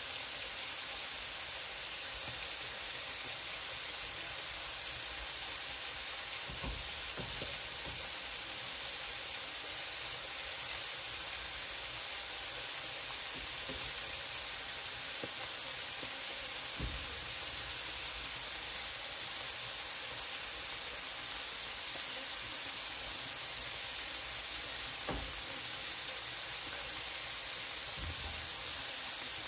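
Diced chicken with green beans and carrots sizzling steadily in a frying pan over high heat, with a few light knocks now and then.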